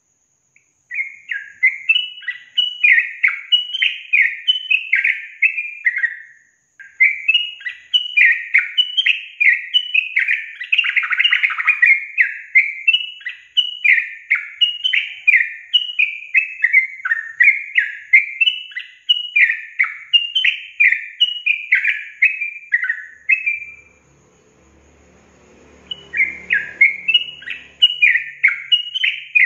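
Yellow-vented bulbul (trucukan) song, a lure recording: a long, fast run of repeated falling whistled notes, about two a second. The run breaks briefly about six seconds in and stops for about two seconds near the end before starting again.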